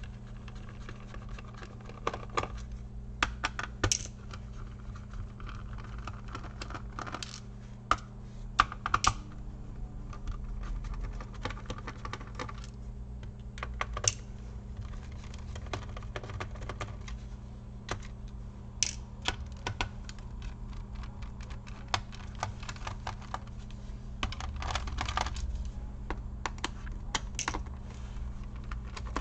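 Irregular small clicks and taps of a screwdriver and small screws on the plastic bottom case of an HP ProBook 450 G1 laptop as its bottom-cover screws are removed one after another, over a steady low hum.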